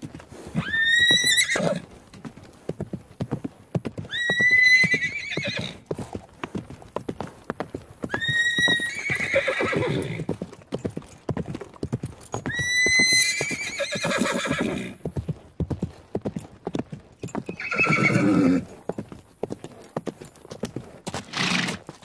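A horse neighing again and again, about every four seconds, each whinny starting high and breaking down into lower, rougher tones, over a steady clatter of hoofbeats from running horses.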